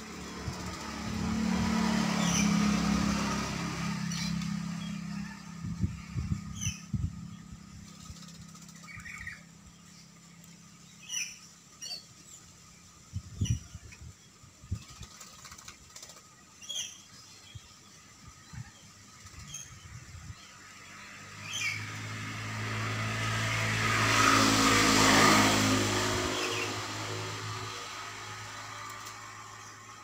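Two vehicles pass by, each a rising then fading rumble, the second one louder about three quarters of the way through. Between them come short high bird chirps and sporadic splashing and wing flutters from an oriental magpie-robin bathing in a water dish in its cage.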